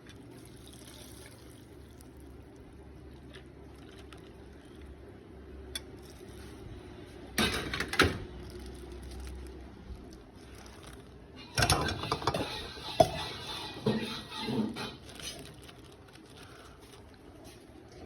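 Liquid being poured and dishes clinking, in a short burst about seven seconds in and a longer one from about eleven to fifteen seconds in, over a low steady hum.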